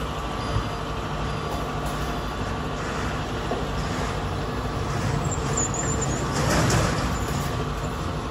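Street traffic: a vehicle engine running with a steady hum over road noise, swelling loudest about six and a half seconds in.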